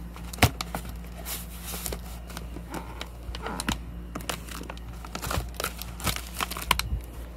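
Plastic wrap and cardboard packaging of firework shells crinkling and rustling as they are handled, with scattered clicks and knocks. A sharp knock about half a second in is the loudest.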